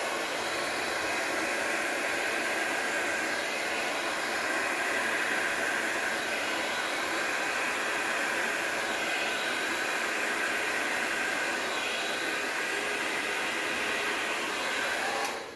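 Handheld hair dryer running steadily, blowing air over wet paint on a canvas; it is switched off just before the end.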